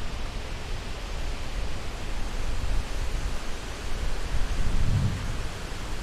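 Wind buffeting the microphone in uneven gusts, a low rumble that swells loudest about five seconds in, over a steady hiss.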